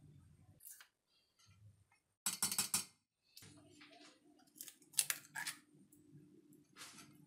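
Short clicks, taps and scrapes of ingredients going into a stainless steel mixing bowl, with a sharper cluster about five seconds in as an egg is cracked into the bowl. A faint steady hum sits underneath for the second half.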